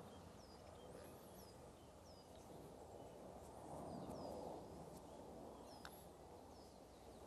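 Near silence outdoors, with faint birds chirping: short high chirps that slide downward, repeating every second or so.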